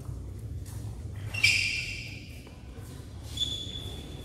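Badminton court sounds between rallies: a steady low hum of the hall with two short high-pitched squeaks, one about a second and a half in and one near the end, typical of court shoes on the floor.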